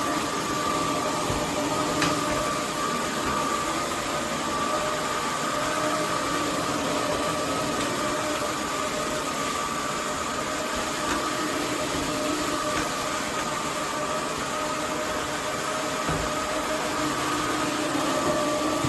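Roborock F25 RT cordless wet-dry floor vacuum running steadily: an even rush of air with a steady motor whine. There is a single click about two seconds in.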